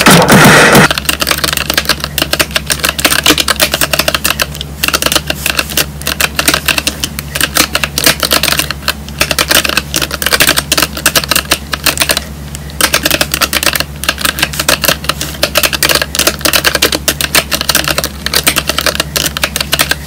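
Fast, continuous typing on the Akko Sakura Jelly 3087 tenkeyless mechanical keyboard, a dense clatter of keystrokes with a few brief pauses. It opens with a loud rushing noise that cuts off about a second in, and a steady low hum runs underneath.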